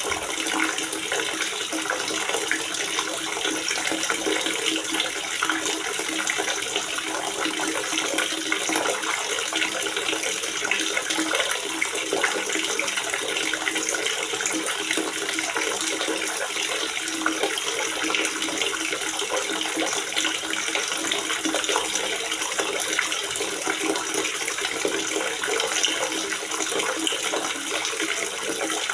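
Water gurgling steadily in a water reservoir, a constant stream of small splashes with little low rumble.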